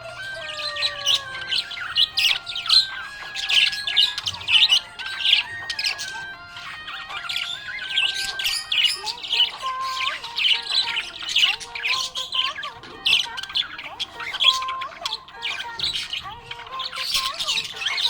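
Budgerigar chirping and squawking in a rapid, dense run of short calls, over a background melody.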